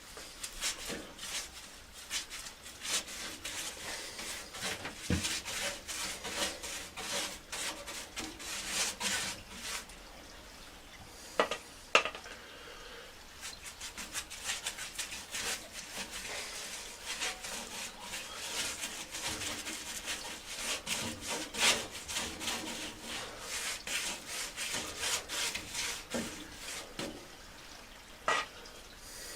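Irregular rubbing and scraping strokes, as of hand scrubbing, sanding or filing a part, with a few sharp knocks around the middle.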